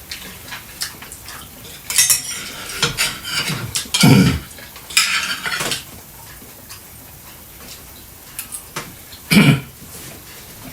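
Dishes and cutlery clattering in scattered bursts of clinks and knocks. There are also two short, louder low sounds, about four seconds in and again near the end.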